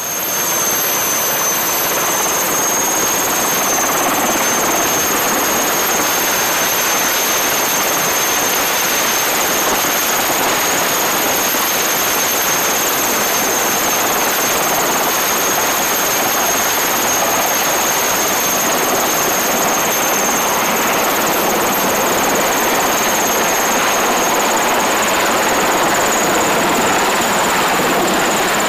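SA330J Puma helicopter hovering close by: a steady rush of rotor and engine noise with a high, steady whine from its twin turboshaft engines, which edges up slightly in pitch near the end as it lifts an external sling load.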